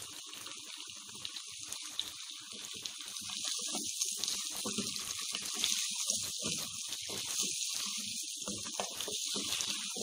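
Raw chicken pieces sizzling in hot oil in an enamel pot, with a steady hiss that grows louder about three to four seconds in as the meat is stirred. Irregular scraping and shuffling of the wooden spatula and the chicken pieces run under the hiss.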